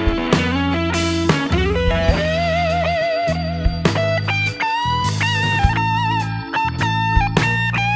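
Background rock music led by an electric guitar, with wavering held notes over a steady bass line and drum hits.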